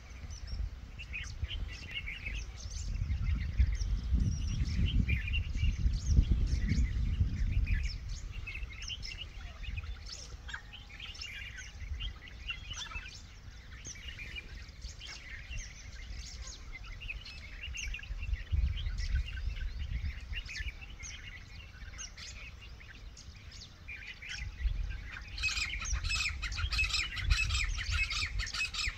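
Many small birds chirping and calling over one another, growing denser and louder near the end, with a low rumble a few seconds in.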